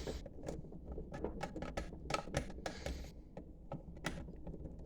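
Small irregular clicks, taps and rattles of cables and connectors being handled and pushed into place.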